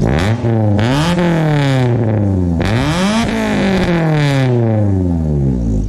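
1996 Honda del Sol's four-cylinder engine through a new Magnaflow muffler, heard at the tailpipe. The engine is revved up twice, climbing quickly and falling back each time, and settles to idle near the end.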